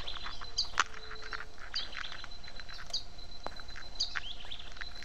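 Wild animal calls: a short high chirp repeating evenly about once every second and a bit, over a steady high thin whine and a fainter lower hum, with scattered soft clicks.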